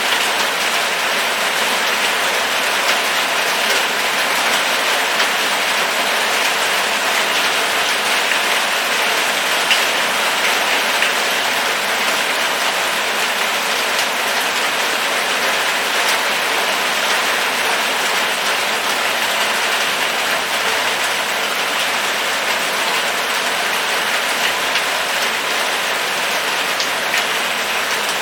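Steady rain falling and pattering on surfaces, with scattered individual drop ticks.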